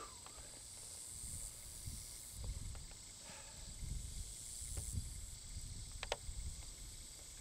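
Summer field ambience: a steady high-pitched insect hiss, with an uneven low rumble underneath and a few faint clicks.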